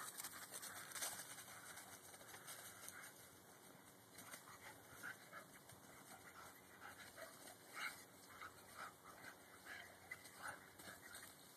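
Faint sounds of dogs playing in dry fallen leaves: soft rustling and scuffling, a little louder in the first second, then short scattered rustles.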